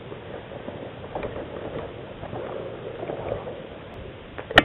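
Rustling and scraping of clothing and gear as a person shifts among rocks, with a sharp crack near the end.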